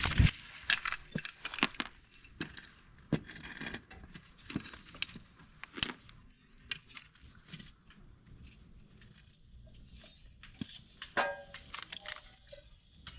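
Irregular light clicks, knocks and clinks of hand tools and metal parts being handled during motorcycle swingarm work, with a short squeak about eleven seconds in.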